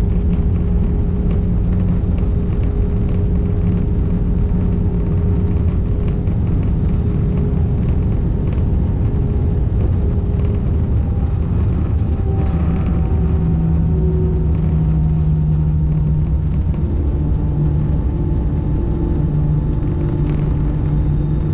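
Airbus A319 heard from inside the cabin during the landing rollout: a steady low rumble of the wheels and airframe on the runway under the hum of the jet engines. About halfway through, one of the engine tones slides down as the aircraft slows.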